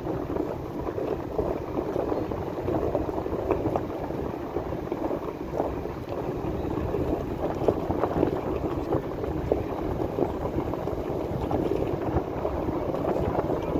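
Steady rumbling noise of a vehicle moving slowly along a rough dirt track, with small crackles from the tyres and wind on the microphone.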